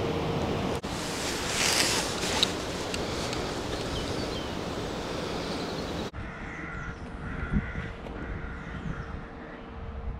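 Rooks cawing over wind noise on the microphone; about six seconds in the wind drops away and a run of short, harsh caws follows. The rooks are agitated, stirred up by the shooting.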